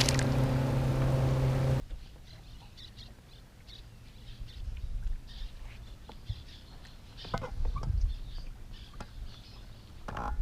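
A steady, loud hum that cuts off abruptly about two seconds in, then a quiet stretch with faint bird chirps and a few light knocks.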